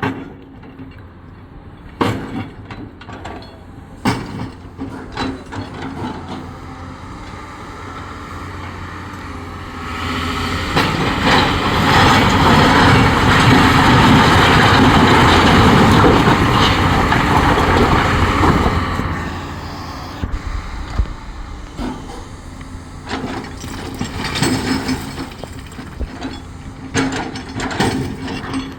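Heavy Caterpillar machine working rocks: diesel engine running with scattered metal clanks and knocks. About ten seconds in it gets much louder with a rushing noise for some eight seconds, then settles back.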